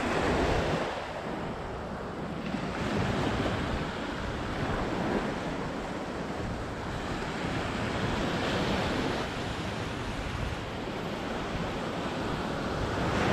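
Surf breaking and washing up the beach in repeated surges that swell and ebb every few seconds, with some wind rumbling on the microphone.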